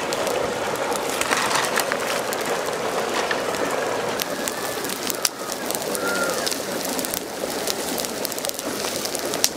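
Open fire of sticks and dry leaves burning hard, with a steady stream of crackles and pops. A bird calls briefly about six seconds in.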